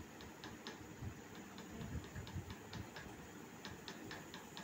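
Hard-boiled eggs being peeled by hand: faint, irregular small clicks and crackles of the shells breaking, with bits of shell dropping onto a steel plate.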